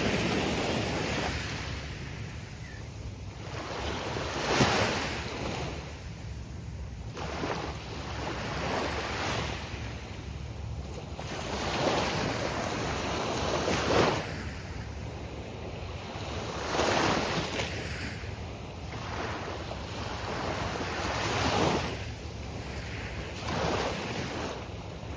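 Gulf of Mexico surf breaking on a sandy beach, waves rising and crashing every two to four seconds, over a steady low rumble of wind on the microphone.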